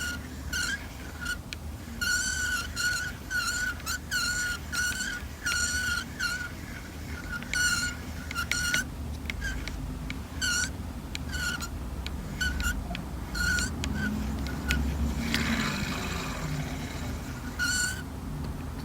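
Daiwa Revros LT 2500D-XH spinning reel squeaking as it is cranked, a short high chirp about twice a second, once per handle turn, with a brief grinding rasp about two-thirds through. This is the reeling noise the owner is recording as a complaint about the reel.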